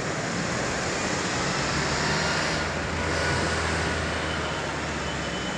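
Street traffic: steady hum of car and light-truck engines running and passing, growing a little louder for a second or so midway as a vehicle goes by.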